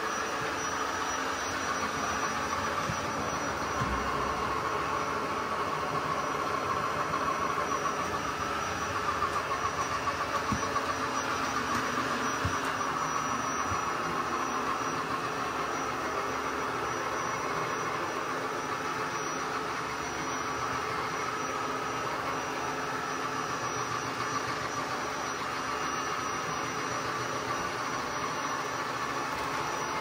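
ECOVACS DEEBOT N20 PRO PLUS robot vacuum running its suction fan in a noise test of its suction levels: a steady whirring hum with a thin, high, steady whine above it.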